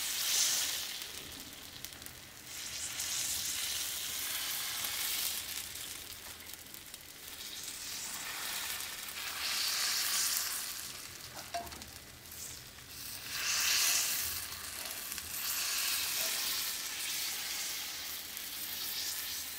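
Thin sama-rice and sago dosa batter sizzling on a very hot tawa as it is ladled on, the hiss swelling and easing several times. The fierce sizzle is the high heat that makes the batter set into a lacy, holed crepe.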